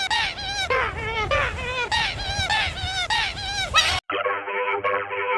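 A high-pitched, effects-processed voice chanting a rapid string of short syllables, each rising and falling in pitch. About four seconds in it cuts off abruptly into electronic music.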